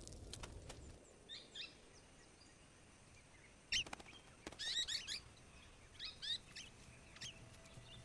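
Faint, short, high bird chirps in scattered bursts every second or so, the sharpest just under four seconds in, with a few faint crackles in the first second.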